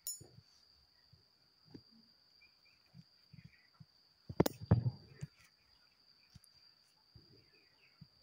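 Handling sounds of a knitting needle being worked through knitted wool: scattered light clicks, with a sharp click and a few louder knocks about halfway through. A steady faint high-pitched whine runs underneath.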